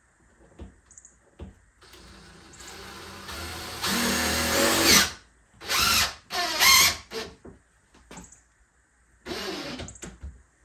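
Power drill driving screws into cabinet boxes: one long run that builds up over about three seconds, then three short bursts whose pitch slides as the screws seat.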